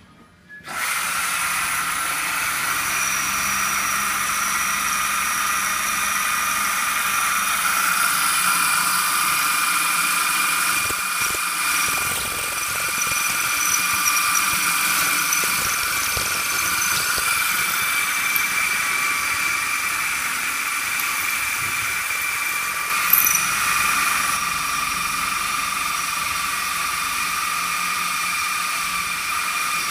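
Electric tapping arm's motor driving a drill bit into a round metal bar, running with a steady high whine that starts about a second in. A short click comes about three-quarters of the way through.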